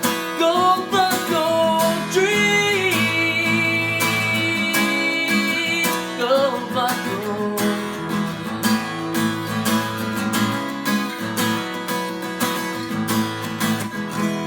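Country song outro: strummed acoustic guitar over a steady beat, with a bending lead line in the first few seconds and again about six seconds in.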